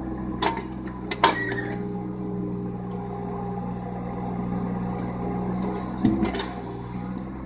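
Compact excavator's diesel engine running steadily while its bucket and thumb grip and swing a log, with sharp metallic clanks, the loudest about a second in and another near the end.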